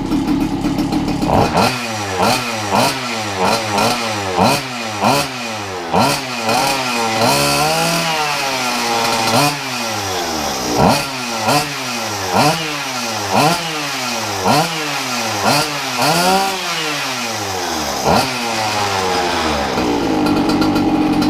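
Goped R460 two-stroke scooter engine blipped over and over through a Jetpro expansion pipe, each blip rising and falling in pitch, about one and a half a second. It drops back to idle near the end.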